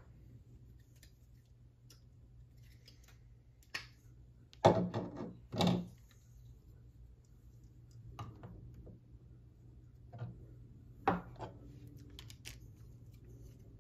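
Plastic LEGO mech parts clicking and knocking as the limbs are pulled off and handled, in scattered sharp clicks, the loudest few a little before the middle.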